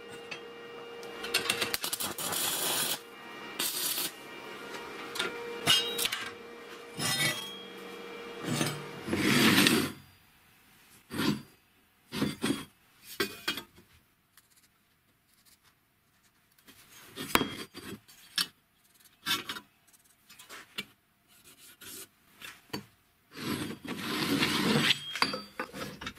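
Hand work on steel pieces: metal plates clinking and scraping as they are fitted together, then short scattered scratches and taps. Near the end comes a longer, louder rasping, metal rubbing on metal.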